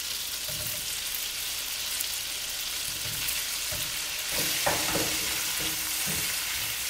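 Sliced sausage sizzling in a cast-iron skillet over a gas burner, a steady frying hiss, with a utensil stirring and knocking softly in the pan near the end.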